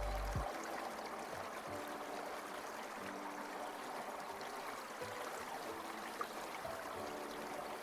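Water stream flowing and trickling steadily. A low musical bass note cuts off about half a second in, and faint short tones come and go over the water.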